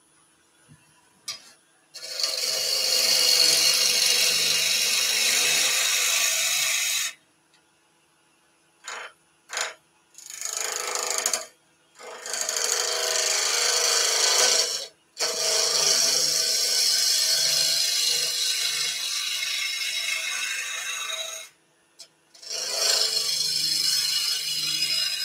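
Turning gouge cutting a spinning blank of solid timber on a wood lathe: a scraping shaving noise in five long passes, each a few seconds, separated by short pauses. In the pauses the running lathe leaves a faint steady hum, with a couple of brief clicks from the tool.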